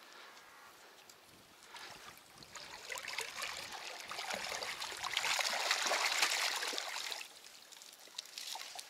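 Water splashing and running off as a catch of fish is lifted out of the water. It builds from about two seconds in, is loudest just past the middle, and stops abruptly a little before the end.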